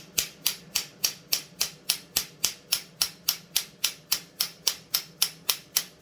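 Small hammer tapping steadily, about three and a half even strikes a second, on a piece of tube to drive a heated crank bearing onto a chainsaw crankshaft.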